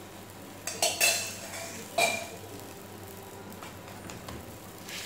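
Metal spoon clinking and scraping on a dosa pan while oil is rubbed over the top of a frying aloo paratha, with a few sharp clinks about a second in and again at two seconds.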